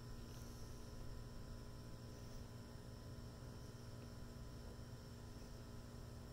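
Faint steady hum with a low background hiss and no distinct sounds.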